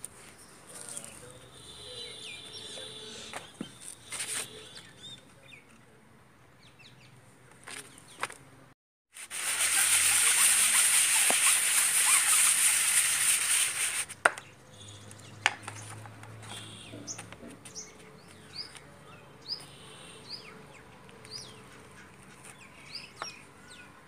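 Faint bird chirps in the background, with a few light knocks. In the middle, after a brief cut to silence, comes about five seconds of loud, even hiss.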